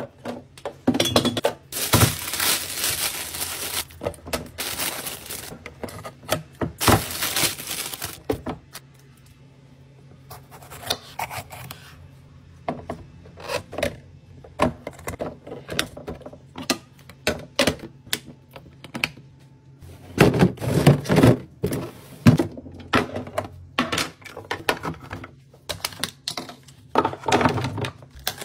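Clear plastic fridge-organiser bins being handled and set down, with repeated clacks and knocks of plastic and produce placed into them, and a few longer stretches of rustling. Near the end small tomatoes and radishes tumble and rattle into a plastic bin.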